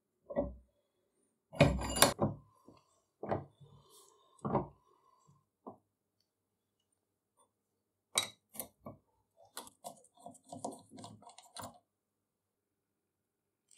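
Scattered metal clanks and clinks from a rusty cast-iron arbor press being worked and taken apart by hand, with a spanner on the pinion shaft nut. The loudest is a pair of knocks about two seconds in, followed by a quick run of small clicks and rattles in the second half.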